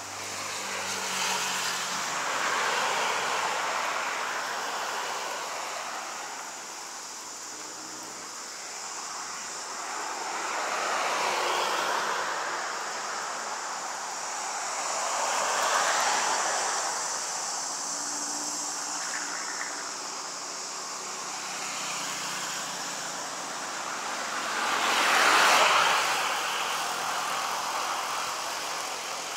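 Road traffic passing by: about four vehicles go past one after another, each rising and fading as a rush of engine and tyre noise, the loudest one late on.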